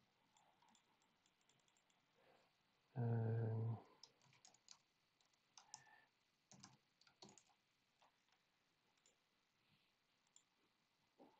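Faint, scattered taps of a computer keyboard and clicks of a mouse. A short, steady low hum about three seconds in is the loudest sound.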